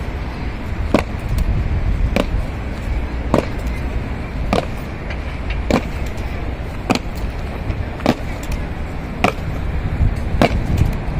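Guards' boots striking the pavement in a slow ceremonial march, one sharp stomp about every 1.2 seconds, over a steady low rumble.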